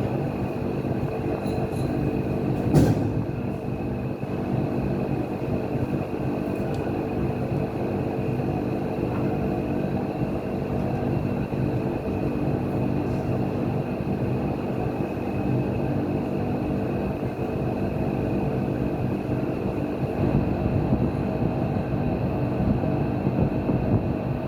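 Steady running noise from machinery: a low hum with a thin high whine over it, and one sharp knock about three seconds in.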